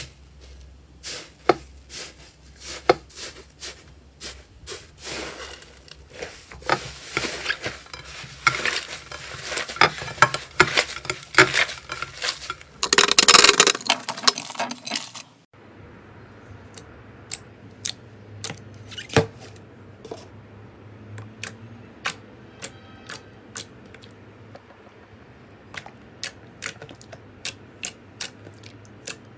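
Slime being squeezed and pressed by hand: a run of sticky pops and clicks that thickens into dense crackling in the middle, then sparser single pops after an abrupt change about halfway through.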